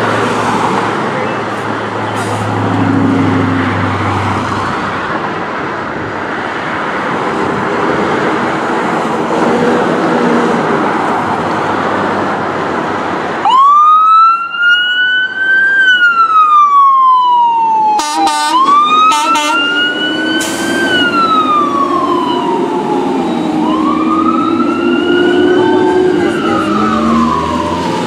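A fire truck's diesel engine runs as the truck pulls out of the station bay. About halfway through, its electronic siren starts wailing, rising and falling in slow sweeps. Brief rapid yelping bursts come a few seconds later, then the wail continues with a lower wailing tone under it.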